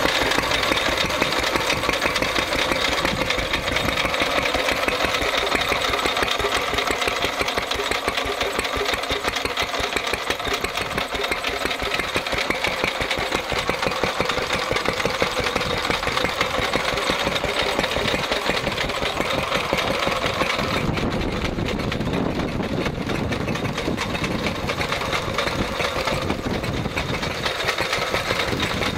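Lister D single-cylinder stationary engine running steadily, with a fast, regular firing beat. About two-thirds of the way through, the sound turns duller, with less hiss and more low end.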